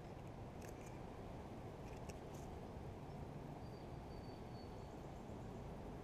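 Faint clicks and handling noises from a plastic bait jar's screw lid being twisted open, about a second in and again around two seconds in. Under them is a steady low outdoor rumble, and a faint thin high whistle comes in near the middle.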